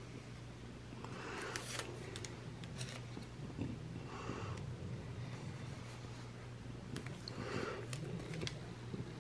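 Quiet handling of planner stickers and paper: a few soft rustles and scrapes with small clicks, over a steady low hum.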